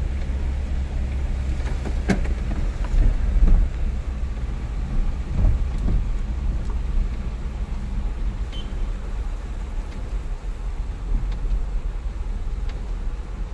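Steady low rumble inside a moving vehicle, its engine and tyres running on a rain-soaked road, with a light hiss and a few faint knocks.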